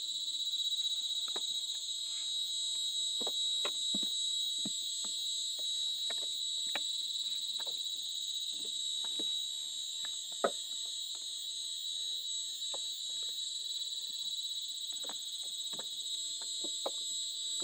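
Steady high-pitched drone of an insect chorus, with scattered light clicks and taps from handling the stopped brush cutter; one sharper tap comes a little past halfway.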